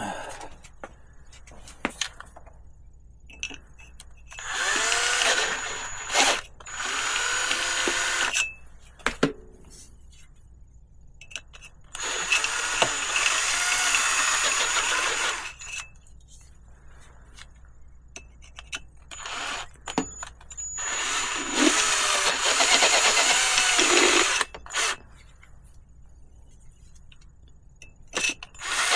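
Power drill running in bursts of a few seconds, its speed rising and falling as the bit rounds out rivnut holes in a bicycle frame.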